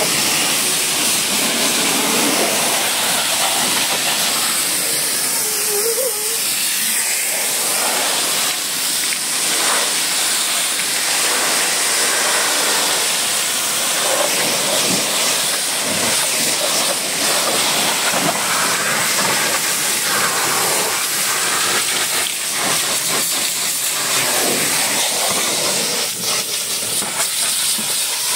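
High-pressure water jet from a pressure-washer lance spraying against a car's body panels and wheel: a loud, steady hiss of spray and spatter.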